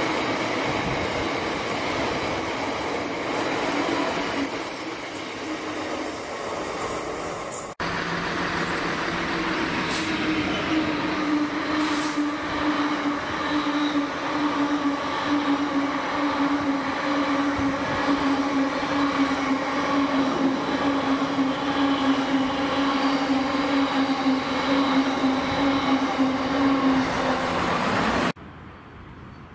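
A freight train passing on the main line, its rolling stock rumbling steadily over the rails. After a brief dropout about a quarter of the way in, a long steady droning tone sinks slowly in pitch over the rest of the pass. The sound cuts off abruptly near the end.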